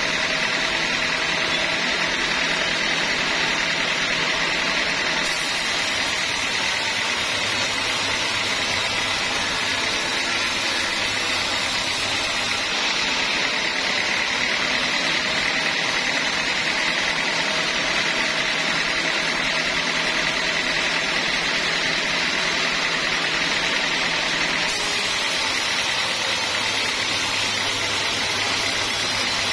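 Band sawmill running steadily, its band blade sawing through a teak log: an even, unbroken mechanical noise with no pauses or changes.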